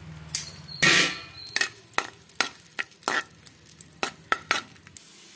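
Raisins frying in ghee in a metal pan, stirred with a spoon. There is a loud sizzling scrape about a second in, then a string of separate clinks and scrapes of the spoon against the pan.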